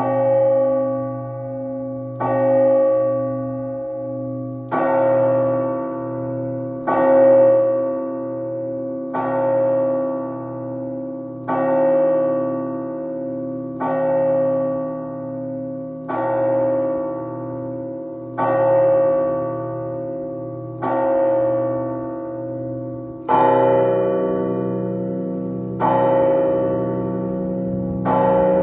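Russian Orthodox church bells rung by hand, struck together in a slow, even rhythm of about one stroke every two seconds. Each stroke rings out over a deep, steady hum. Near the end a lower bell joins and the strokes grow louder.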